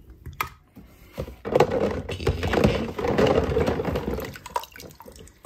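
Water splashing and sloshing as a hand swishes a toy car through a tub of soapy water, lasting about three seconds, after a few light clicks of handling the toy.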